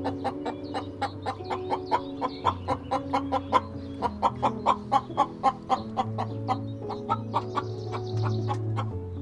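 Chickens clucking in a fast, steady run of short calls, about four to five a second, loudest in the middle, over background music with long held notes.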